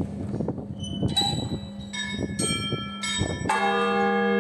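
Orthodox church bells struck by hand in a bell tower: a few lighter, higher bells ring out in an uneven series, then about three and a half seconds in a much heavier strike sets a bell ringing on with many sustained tones over a low hum.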